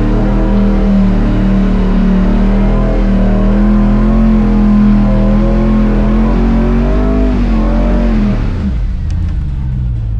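Off-road truck engine revving hard and held at high revs on a steep, slick climb, its pitch wavering as the tyres spin and grip. The revs drop away near the end.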